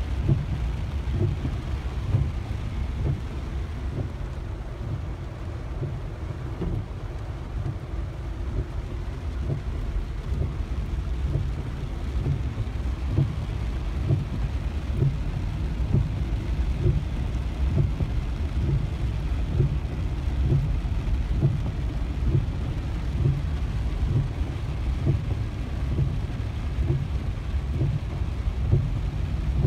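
Heavy rain beating on a car's roof and windshield, heard from inside the cabin, over the steady low rumble of the car creeping through floodwater.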